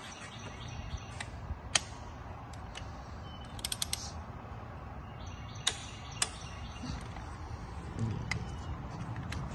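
Torque wrench clicking as cylinder head bolts are tightened in sequence: scattered single sharp clicks, with a quick run of several clicks about four seconds in.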